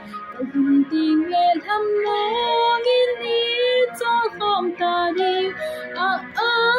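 A woman singing a Christian song in a Kuki-Chin language, with a long held note in the middle.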